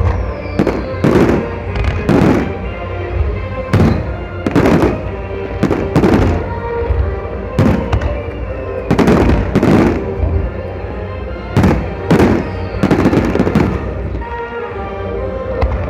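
Fireworks shells bursting in a rapid run, about one a second, thinning out near the end, over music.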